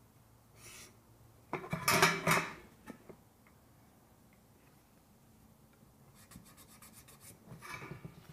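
Handling noise from marking out painted steel Z closure trim: a loud scrape as the rafter square and trim are shifted on the table about a second and a half in, then near the end a quick run of scratchy strokes of a Sharpie marker drawing on the metal.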